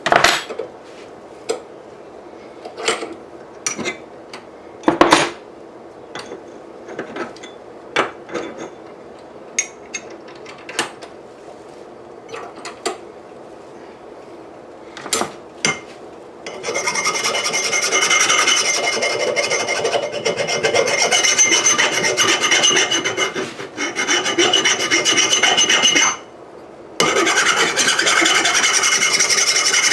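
Scattered clanks and knocks of metal being handled, then a power grinder grinding the steel anvil's edges: a loud, steady, rasping grind from about 17 seconds in that stops for about a second near the end and resumes.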